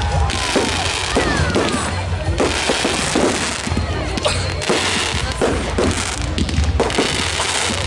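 Fireworks going off: repeated bangs and crackling from bursting shells and spark fountains, with music playing underneath.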